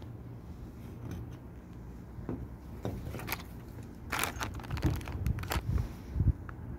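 A steady low hum with scattered clicks and rustles, busiest from about three to six seconds in.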